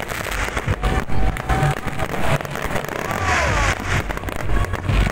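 Aerial fireworks going off in a dense run of sharp bangs, deep booms and crackles, with music playing underneath.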